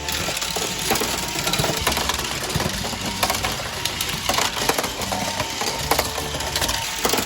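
Motorized plastic toy train and car track sets running: a steady small-motor hum with a dense clatter of plastic clicks and rattles.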